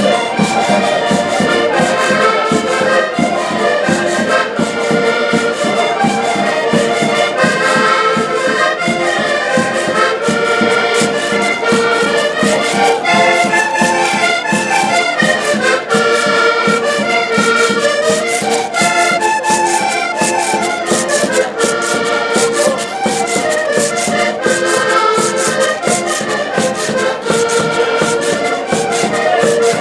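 Portuguese folk band playing a lively traditional tune on several accordions together, with a bass drum and light percussion keeping a steady beat.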